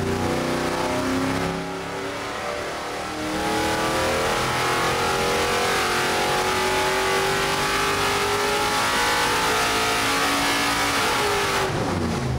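6.4L Gen III HEMI V8 running on an engine dyno: after a brief lull about two seconds in, it makes a wide-open-throttle pull, its pitch rising steadily to about 6600 rpm. Near the end the throttle closes and the revs fall away.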